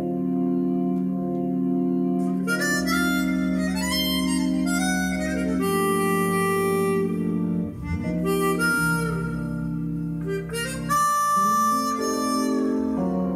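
Recorded music played back through Spendor SP2/2 loudspeakers from a Musical Fidelity A3 amplifier and CD player: held chords and sustained notes that change every few seconds, heard in the listening room.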